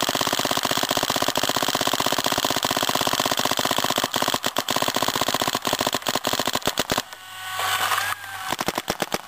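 A Smart Parts Shocker SFT paintball marker with a Virtue board fires a fast, continuous string of shots at well over ten a second, as set by uncapped PSP ramping mode. The string stops about 7 seconds in for a short pause with a different pitched sound, then firing resumes briefly near the end.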